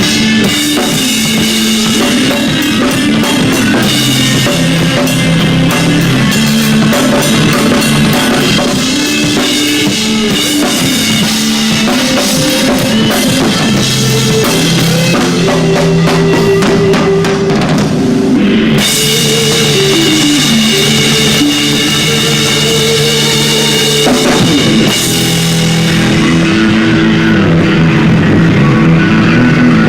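A live rock band playing: a drum kit with bass drum and cymbals drives along under bass and guitar lines. The cymbal wash drops out briefly about two-thirds of the way through and thins toward the end.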